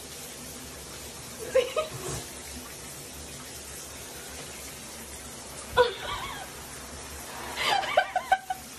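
Shower water running in a bathtub as a steady hiss, with a few short bursts of laughter over it, the longest cluster near the end.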